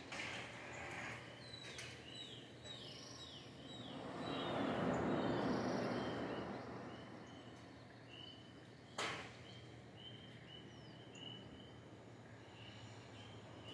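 Birds calling with repeated short chirps, including a quick run of falling notes in the first few seconds, over a rushing swell of sea surf that rises and fades in the middle. A single sharp click about nine seconds in.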